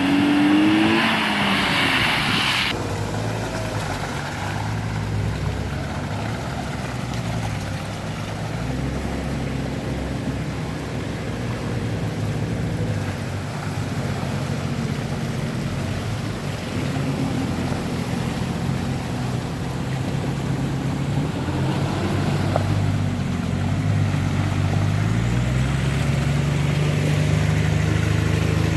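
Off-road 4x4's engine running and revving, its pitch rising and falling with throttle, with a louder rise near the end. A hiss is heard over it for the first couple of seconds.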